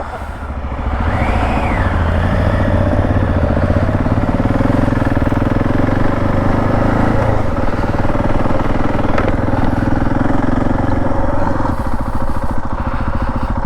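Husqvarna 701 Enduro's single-cylinder engine running under way on an off-road trail. It picks up over the first couple of seconds, then pulls steadily, with the note easing off about halfway through.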